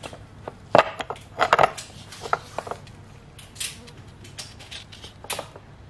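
Metal camshaft sprockets clinking and knocking as they are handled and turned against each other: a scattering of sharp clicks, the loudest about a second in.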